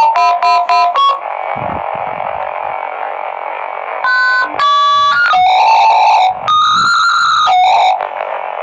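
Dial-up modem connecting: the last quick touch-tone dialing beeps, then about three seconds of hiss, then the handshake's steady tones switching with bursts of static.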